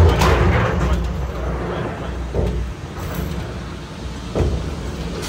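Skyride cable-car gondola running along its cable: a steady low rumble, loudest at first and easing off, with a dull knock a little before halfway and another near the end.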